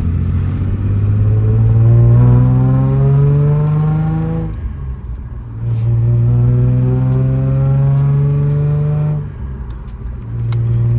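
Car engine, freshly swapped and in its break-in, accelerating through the gears of a manual gearbox. The revs climb, drop at an upshift about four and a half seconds in, climb again, and drop at a second shift a little after nine seconds.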